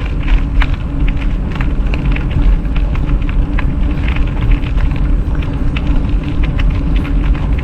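Wind buffeting the microphone with a steady rumble of e-bike tyres rolling along the rail trail, and many small scattered clicks over it.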